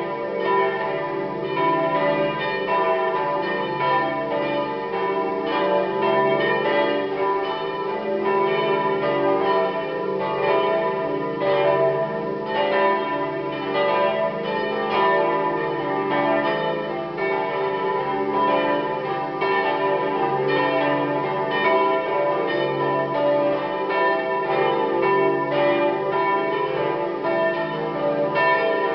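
Several church bells swinging together in a full peal, their strokes overlapping without a pause while the tones hang on. This is the peal rung to call people to the Saturday evening Mass.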